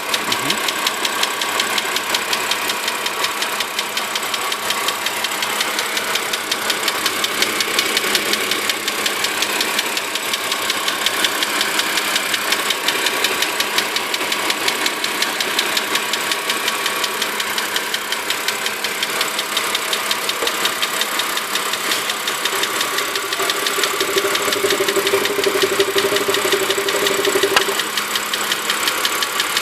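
BMW E60 523i straight-six engine running steadily with a rapid, even knocking, which the owner puts down to the hydraulic valve lifters.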